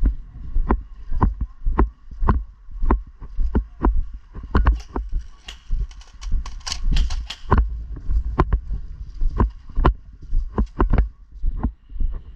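Footsteps of someone walking with a body-worn microphone: heavy thuds with clicks, about two a second, a little busier midway.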